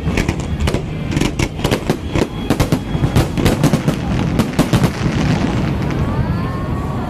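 Fireworks exploding in a rapid barrage of sharp bangs and crackling pops for about five seconds, thinning out near the end as crowd voices come through.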